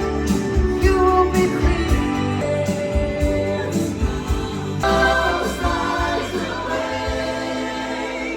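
Music with singing over a deep bass, the chords changing about five seconds in.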